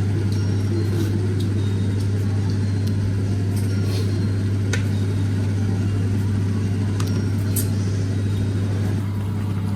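Steady low machine hum, like a running fan or motor, with a few faint scattered clicks.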